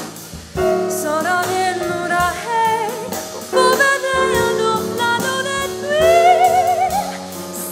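Live band music with a singer: sung phrases with wide vibrato over a sustained accompaniment with drums, the voice coming back in about half a second in after a short breath.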